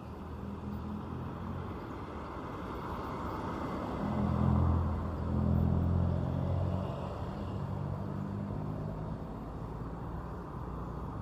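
Large bus's diesel engine running as the bus pulls out, loudest around the middle, then easing back to a steady hum.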